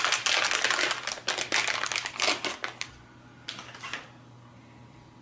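Plastic packaging crinkling and rustling as it is handled, a rapid run of crackles that stops about three seconds in, with one more short rustle just before the end.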